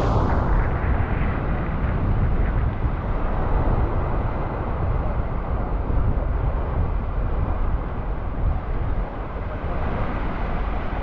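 Jet airliner passing low overhead, a steady deep roar.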